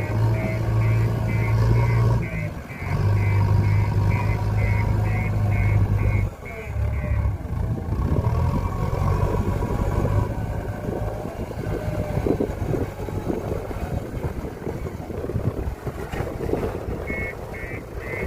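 A JCB backhoe loader's diesel engine runs while its reversing alarm beeps about twice a second. The beeping stops about seven seconds in and comes back near the end, with uneven engine rumble and clatter in between.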